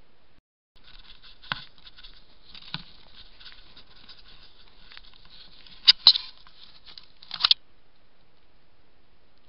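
Close rustling and scratching against a trail camera, with several sharp knocks, the loudest near the end, then cut off abruptly. Something is brushing right against the camera and its lens.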